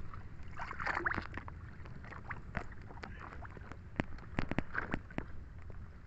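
Water lapping and sloshing against the hull of a small wooden boat loaded full with harvested seaweed, over a steady low rumble, with a few sharp clicks and knocks in the second half.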